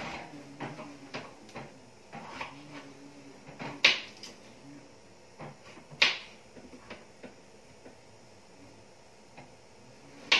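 Irregular light clicks and knocks, with three sharp knocks about four, six and ten seconds in.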